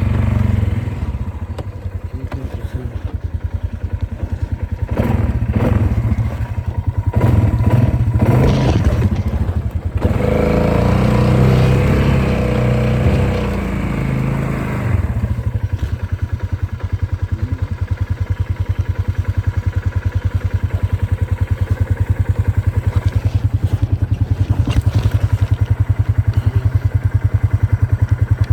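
Polaris off-road vehicle engine running, with knocks and clatter from about five seconds in and a louder, rougher stretch until about fifteen seconds in, then a steady low running.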